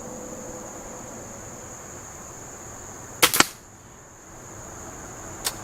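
Benjamin Trail NP nitro piston break-barrel air pistol firing a pellet about three seconds in: a sharp double crack over a steady chirr of crickets. A single lighter click comes near the end.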